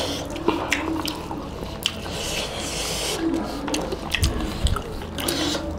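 Close-up eating sounds: wet chewing and mouth smacking, with fingers squishing rice and curry by hand, heard as a string of short wet clicks.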